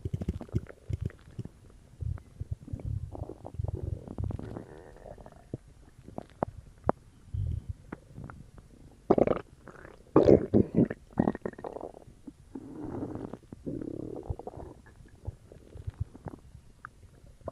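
A person's stomach gurgling and rumbling after drinking cola: irregular bubbling gurgles and squelches with small clicks between them. The loudest run comes about nine to eleven seconds in.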